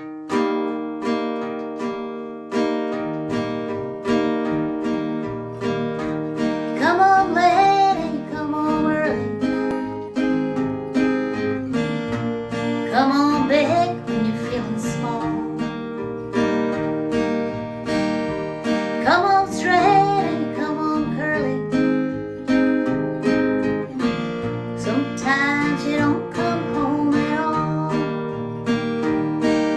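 Acoustic guitar strumming the instrumental introduction of a folk song. A wavering lead melody line comes in for a phrase about every six seconds.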